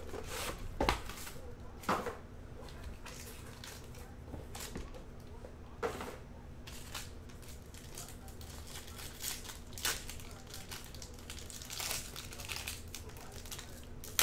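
Foil trading-card pack wrappers crinkling and tearing open by hand, in many short crackles with a few sharper clicks.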